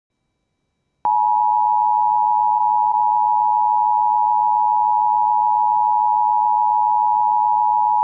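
Emergency Alert System two-tone attention signal: a loud, steady alarm of two tones sounding together, starting abruptly about a second in after silence. It marks the start of an EAS severe thunderstorm warning.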